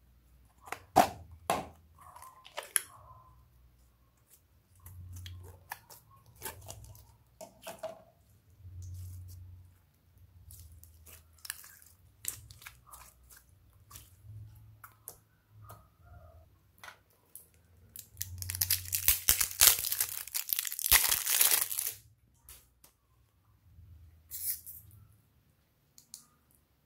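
Hands handling slime and plastic toy containers over a glass bowl: scattered clicks, taps and sticky crackles, with a few seconds of dense crinkly, tearing crackle past the middle as slime is pulled and worked.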